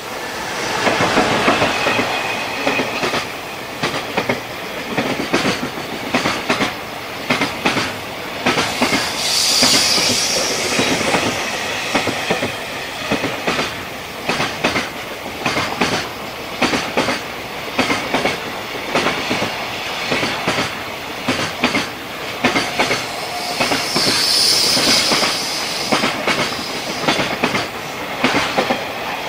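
Container freight train hauled by a JR Freight EF210 electric locomotive passing: a steady rumble with a rhythmic clickety-clack of wagon wheels over rail joints, swelling twice with a high-pitched wheel squeal.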